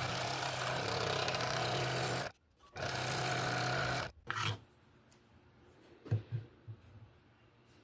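Scroll saw running and cutting through a wood segment: a steady buzzing drone that drops out briefly about two and a half seconds in and stops about four seconds in. A few soft knocks follow in the quiet near the end.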